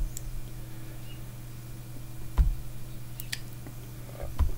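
A few faint computer mouse clicks and two low thumps over a steady low electrical hum.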